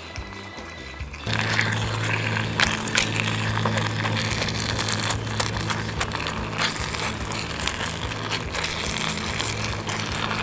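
Tortilla chips and enchilada sauce sizzling and crackling in a small skillet over a camp stove, with a steady burner hum and scattered clicks, starting about a second in.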